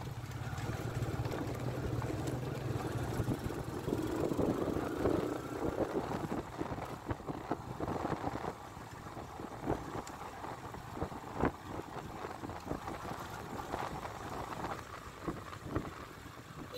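Motorcycle engine running at a low steady speed with wind and road noise, heard from on the bike itself. The engine note is strongest for the first few seconds, then sinks into a quieter rush broken by a handful of short sharp knocks.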